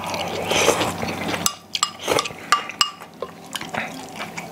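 Table eating sounds: metal spoons and chopsticks clinking and scraping against bowls and a stainless steel pot. Denser and louder for the first second and a half, then a handful of sharp separate clinks.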